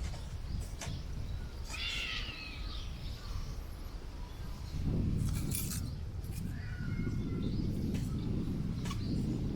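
Strong wind buffeting the microphone in gusts, swelling harder about halfway through, with a bird calling briefly a couple of times and a few sharp clicks.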